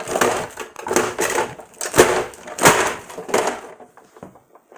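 Plastic casing and stand of an LCD computer monitor cracking and crunching as it is forced and smashed apart, in about six harsh bursts roughly two-thirds of a second apart.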